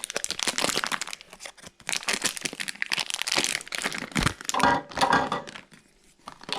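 Plastic packaging being crinkled and torn open by hand, crackling for about four seconds, with a squeakier, more pitched stretch around four and a half seconds in, then going quiet near the end.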